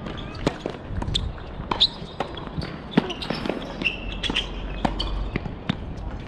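Tennis serve and play on a hard court: a string of sharp, irregularly spaced pops from racket strikes and ball bounces, the loudest near two seconds and three seconds in.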